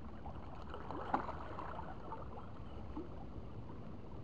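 Quiet, steady sea ambience of water lapping and wind, with faint distant voices now and then and a light knock about a second in.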